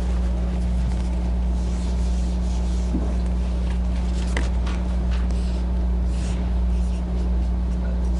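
Whiteboard being wiped and written on: short rubbing strokes of erasing around the middle, then dry-erase marker strokes. A steady low electrical hum runs underneath and is the loudest sound.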